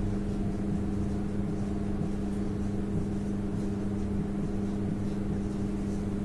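Steady low machine hum at one constant pitch, with faint strokes of a marker writing on a whiteboard.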